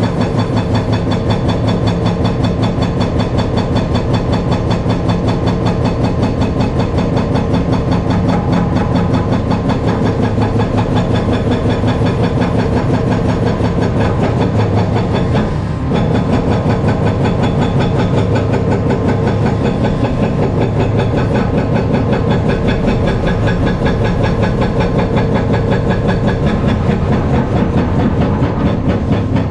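Caterpillar 335 excavator's diesel engine running steadily under working load, with a brief dip about halfway through.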